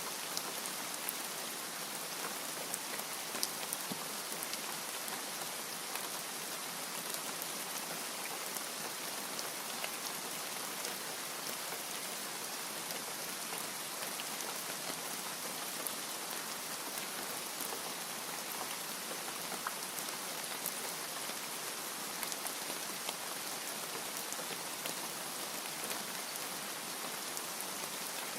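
Steady rain falling: an even hiss with scattered ticks of individual drops hitting a surface.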